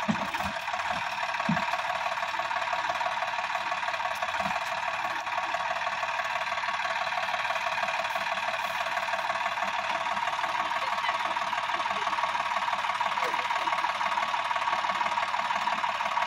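Sonalika DI 60 tractor's diesel engine running steadily with a fast, even clatter.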